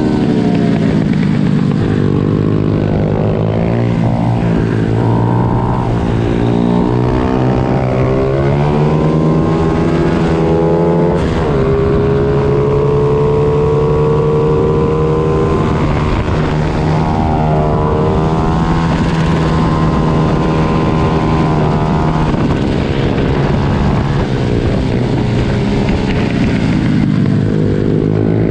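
Several 90cc pit bike engines racing together, each rising and falling in pitch as it revs out and shifts, over a steady low engine drone.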